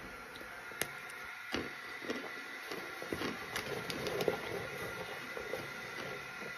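A person chewing and crunching lumps of cornstarch close to the microphone: a few sharp crunches about a second in and again around three and a half to four seconds, with softer crackling chews between.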